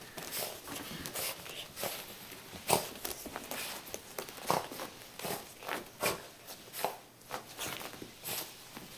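Wet dog rolling and rubbing itself on a carpet after a bath: irregular scuffs and soft thumps of fur and paws on the pile.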